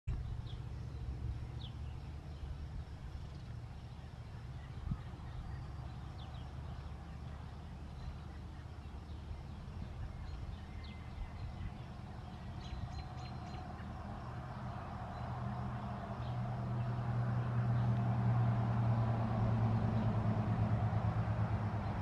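A vehicle engine running with a low hum that grows louder about two-thirds of the way through, with a few short bird chirps now and then.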